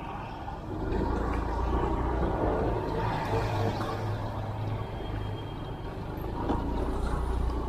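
Motor vehicle engine running close by, a steady low hum that gets louder about a second in and holds, amid street traffic noise.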